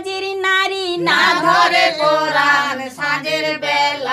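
Patachitra scroll-painter's song, sung unaccompanied. One voice holds a long note, then about a second in several voices sing on together in a chant-like melody.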